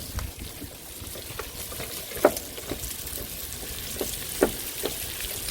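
Pork belly and green onions frying in a pan of oil: a steady sizzle with a few sharp pops.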